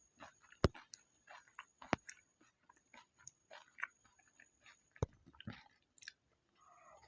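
Close-up chewing of pani puri: crisp puri shells cracking between the teeth and wet chewing, in irregular small crunches with a few sharper, louder cracks.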